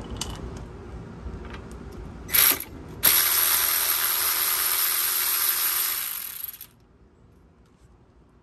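Cordless electric ratchet with a 17 mm socket backing out the lower mounting bolt of a rear strut. A short burst about two seconds in, then the ratchet runs steadily for about three and a half seconds and stops.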